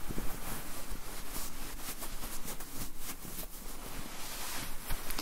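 Denim fabric rubbed and scratched close to the microphone: a continuous scratchy rustle made of many small strokes.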